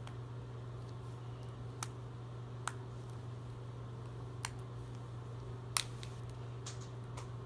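Plastic toy packaging being handled and opened: four short, sharp clicks and crackles, the loudest about three-quarters through, over a steady low hum.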